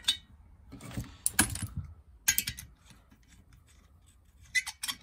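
Metal-on-metal clinks and clicks of a socket tool and nuts being fitted onto the cylinder studs: a few separate clinks, then a quick run of them near the end.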